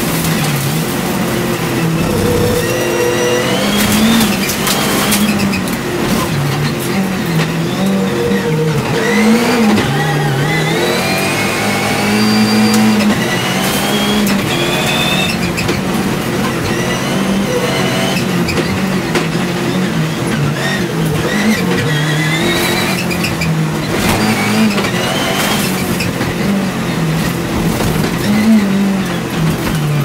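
Onboard sound of a rallycross Supercar racing flat out: the engine revs up and down again and again as it accelerates, shifts and lifts through the corners, with a few sharp cracks.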